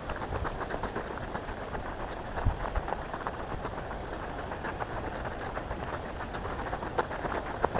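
Irregular crunching and crackling of footsteps walking on a dirt and leaf-litter bush track, over a steady rustle of wind and handling noise on the microphone.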